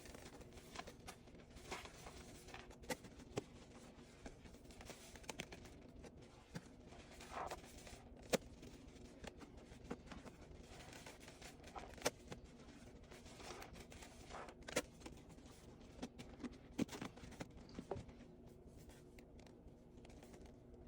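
Soapy sponge being squeezed and worked, giving irregular faint crackles and squelchy clicks over a steady low hum.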